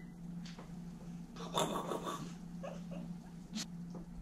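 A black-and-white house cat being held and handled, with a brief rustle about a second and a half in and a few faint short sounds after it, over a steady low hum.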